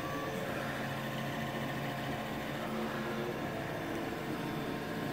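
Several Creatbot FDM 3D printers running mid-print: a steady mechanical whirr of stepper motors and cooling fans, with held motor tones that shift and change now and then as the print heads move.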